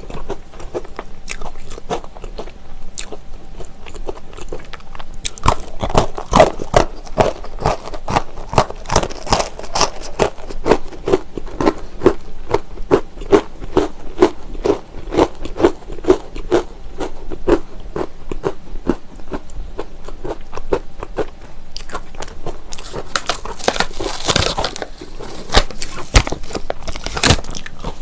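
Close-miked crunching and chewing of hard honey wheat braided pretzel twists, with a steady run of crisp, regular crunches through the middle.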